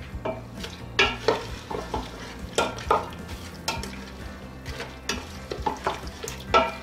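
Wooden spoon stirring meat, onions and water in a stainless steel pressure cooker: irregular knocks and scrapes against the pot, several with a brief metallic ring, over a faint steady low hum.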